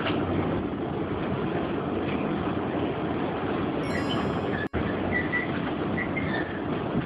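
New York City subway car rumbling along the track, heard from inside the car: a steady noise of the train in motion. The sound drops out for an instant about two thirds of the way through.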